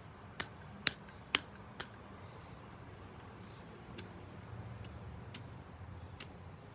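Zippo lighter being worked by hand: a string of sharp metallic clicks, several close together near the start and then more spaced out. Crickets chirp steadily throughout.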